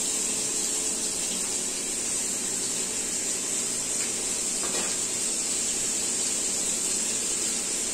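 Cubes of yellow pumpkin sizzling steadily as they fry in hot oil in a kadai over a mustard-seed and urad dal tempering, with a faint clink or two of utensils near the middle.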